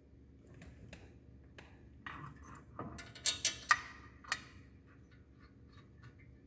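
Metal tools and bolts clinking during hand work on the brake bracket. A few sharp clinks come in quick succession about three seconds in, followed by faint, light ticking.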